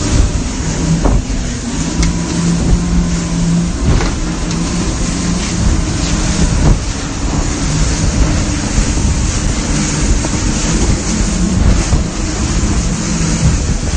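Motorboat running under way, its engine droning steadily under loud wind and water rushing past the microphone.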